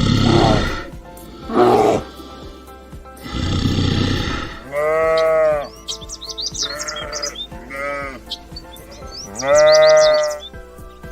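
Repeated bleating from farm livestock: four pitched, wavering calls in the second half, after three rough, breathy calls near the start, all over background music.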